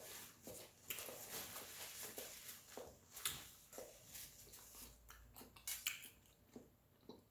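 A person eating and chewing food, with a run of small irregular clicks and crunches.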